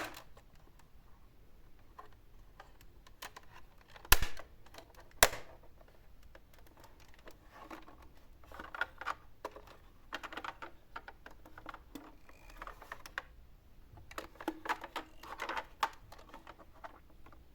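Miniature toy cars clicking and clattering on a hard surface: three sharp knocks in the first five seconds, then two spells of quick, light rattling.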